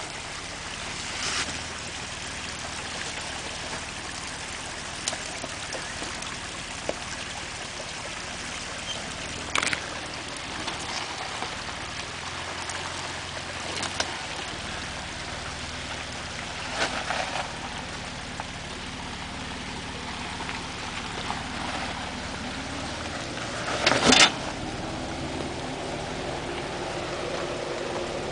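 Jeep Wrangler engine running at a low crawl over rock ledges, a steady low hum that grows louder near the end as it draws closer. Occasional short knocks and crunches sound over it, the loudest about 24 seconds in.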